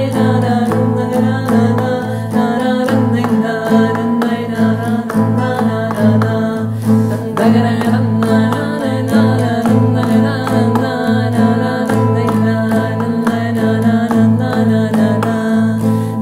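Several layered female voices of one singer holding sustained wordless notes in close harmony over a steadily strummed acoustic guitar, in the nasal folk singing style of the island of Krk.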